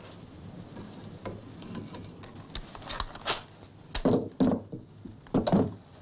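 Knocks and clunks of metal canisters being picked up and set down by remote manipulator tongs, light at first and loudest about four seconds in and again near the end.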